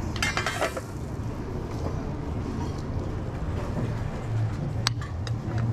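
Steady low mechanical hum, with a short rattle of clicks about half a second in and a single sharp click near the end.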